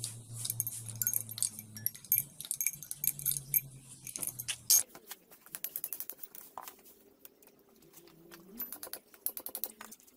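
Quick small clicks and clinks of hand tools and metal engine parts being handled, with a low hum under them that stops at a sharp click about halfway through.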